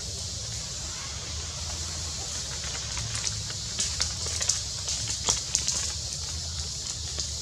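Outdoor ambience: a steady high hiss over a low rumble, with a run of sharp crackling clicks about halfway through.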